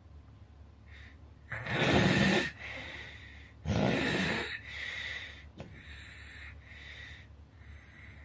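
A sleeping person snoring: two loud, rough snores, each about a second long, about a second and a half and about four seconds in. Quieter snoring breaths follow.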